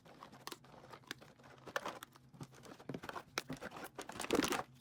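Slime kit packaging being opened by hand: crinkling, tearing and small scattered clicks, busier and louder toward the end.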